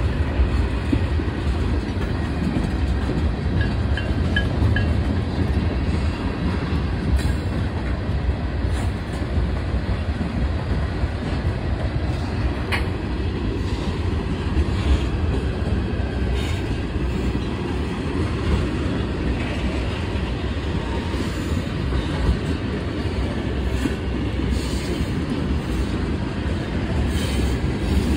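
CSX mixed freight train rolling past: a steady rumble with the clickety-clack of wheels over rail joints and one sharper click about twelve seconds in.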